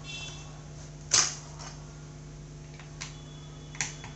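Clicks and knocks of a laptop's 2.5-inch hard drive being slid out of its bay: one sharp click about a second in and two lighter ones near the end, over a steady low hum.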